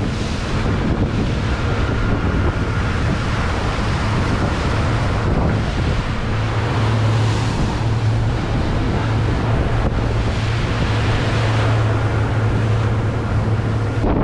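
Boat motor running steadily under way, a constant low drone, under the rush of the wake water and wind buffeting the microphone.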